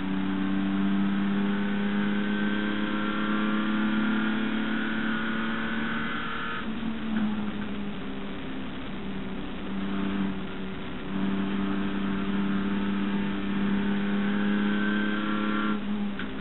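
Holden HQ race car's straight-six engine pulling hard under full throttle, its note climbing steadily, then dropping away abruptly as the throttle closes about seven seconds in and again near the end, with a dip and pick-up around ten seconds. Another race car is close ahead.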